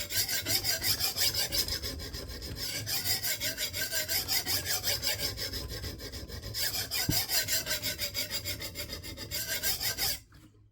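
A coarse 140-grit diamond stone on a KME guided sharpening system is worked back and forth along the edge of a 52100-steel bunka knife. The rasping comes in quick, even strokes, several a second, and stops about ten seconds in.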